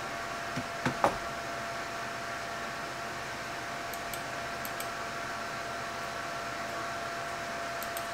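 Steady whir of a Mac Pro tower's cooling fans running, with a constant whine. Two or three short knocks about a second in.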